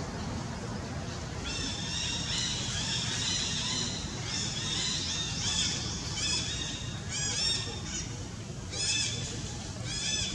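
Baby macaque crying: short, high-pitched, arching cries repeated in quick groups from about a second and a half in, an infant's begging calls for milk.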